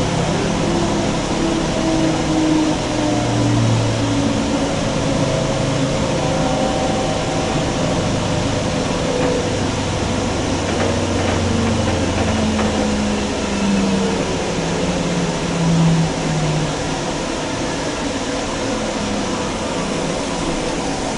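Inside a Kinkisharyo light rail car slowing to a stop: the traction motor whine falls in pitch in a series of steps over a steady rumble, then levels off near the end as the car comes to rest.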